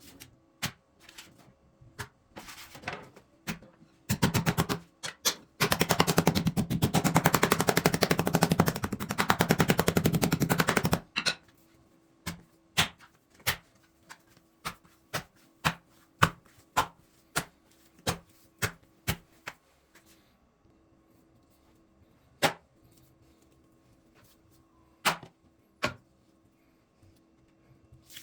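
Knife chopping on a cutting board: a few separate chops, then a very fast run of rapid chops for about seven seconds, then single chops about once a second that thin out to a few near the end.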